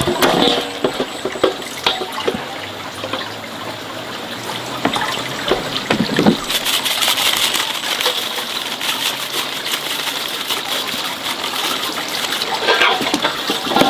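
Water running and splashing, heavier from about halfway through, with scattered knocks of things being handled in it.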